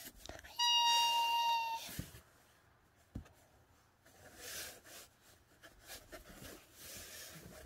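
A cat scuffling in a cardboard box: sharp knocks twice and rustling and scratching of the cardboard as it wrestles with a hand. Near the start, a steady beep of even pitch lasting about a second is louder than the rest.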